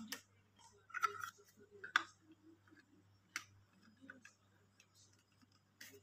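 Sharp plastic clicks and knocks as a handheld cordless vacuum cleaner and its corrugated hose attachment are handled and set down on a tiled floor, about five separate knocks, the loudest about one and two seconds in. The vacuum's motor is not running.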